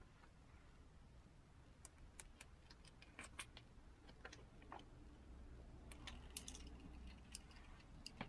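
Faint, scattered small clicks and crinkles of a thin plastic screen-protector film handled by fingers at its pull tab.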